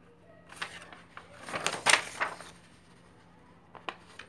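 Rustling and scraping handling noise, loudest around two seconds in, followed by two short clicks near the end.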